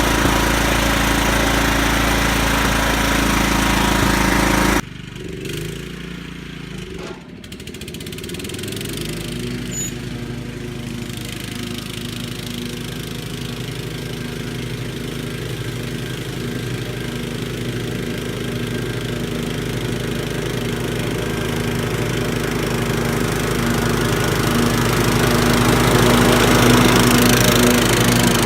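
Kohler Command CV14 single-cylinder engine on a riding mower running steadily. About five seconds in, the sound drops off abruptly; from about eight seconds the engine is heard running steadily again, growing gradually louder towards the end.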